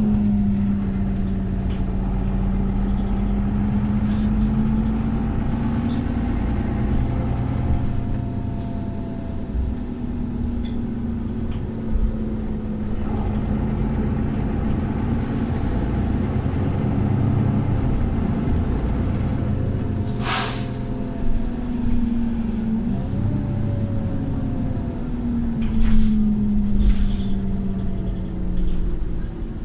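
Mercedes-Benz Citaro O530 bus engine heard from on board while the bus is under way, its drone rising and falling in pitch with speed. About two-thirds of the way through comes one short, sharp air hiss: the bus 'sneezing'.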